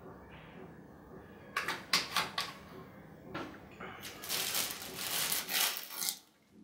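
A plastic water bottle set down on a glass tabletop, a few sharp knocks about two seconds in, then a plastic bread bag rustling and crinkling for about two seconds as it is picked up.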